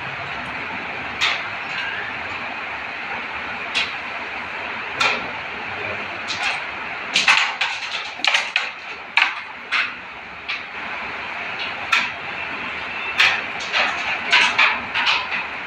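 Carrom striker and wooden coins clicking on the board: sharp clacks of the flicked striker hitting coins and coins knocking against each other and the board's frame, some single and some in quick clusters, over a steady hiss.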